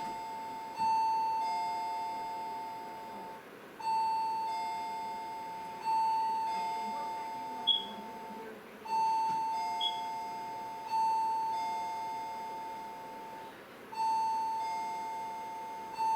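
Electronic two-tone ding-dong chime, a higher note followed by a lower one, sounding again and again every two to three seconds and fading between strikes.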